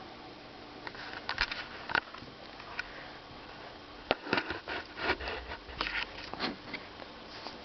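Close handling noises: irregular sharp clicks, taps and rustles from hands working with the Cyber Clean putty and the keyboard, over a faint steady hum.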